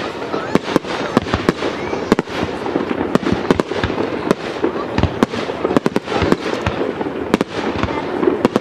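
Aerial fireworks display: shells bursting in quick, irregular succession, several bangs a second, over a dense continuous noise.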